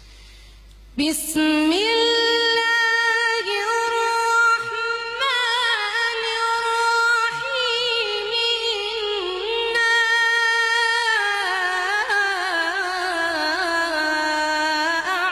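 A woman's voice reciting the Quran in the melodic tajweed style, holding long drawn-out notes with ornamented turns. It begins about a second in.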